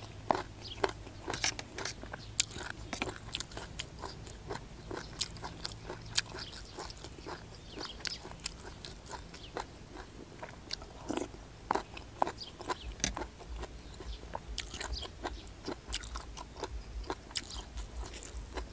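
Close-miked chewing and biting of puffball mushrooms (hed phor) from a curry, with irregular sharp crunching clicks and wet mouth sounds.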